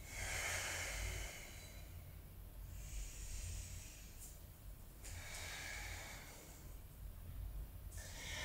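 A woman's slow, deep breathing, audible in and out, each breath drawn out over one to two seconds, about four in all. These are deliberately lengthened yoga breaths, aimed at maximum breathing capacity.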